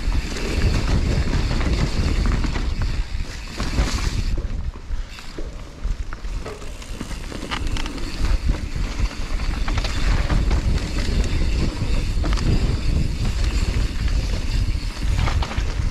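Wind rumbling on a bike-mounted microphone during a fast mountain-bike descent, mixed with tyres rolling over a dirt trail and scattered knocks and rattles of the bike over bumps.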